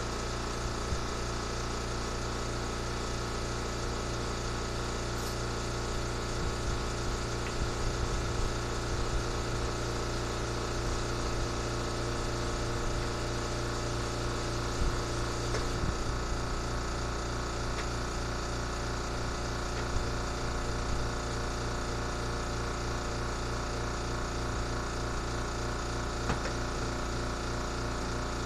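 Air compressor running steadily without a break, with a few light clicks on top.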